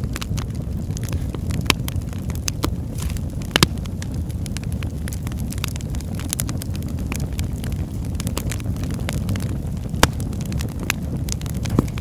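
Fire crackling: a steady low rumble of flames with frequent sharp pops and snaps at irregular intervals, a few of them much louder than the rest.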